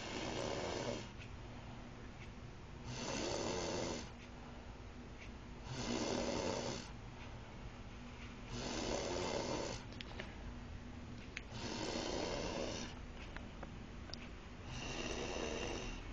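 A sleeping person snoring in a steady rhythm: six snores, each about a second long, one about every three seconds.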